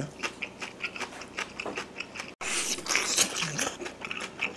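Close-up chewing and lip-smacking of soy-braised pork back ribs eaten by hand: a run of short wet clicks. About halfway through, the sound cuts out for a moment, then a louder stretch of biting follows.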